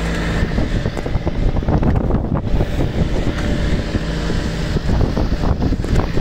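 Strong wind buffeting the microphone and waves splashing against the hull of a sailboat pounding into a head sea, with a low engine drone underneath.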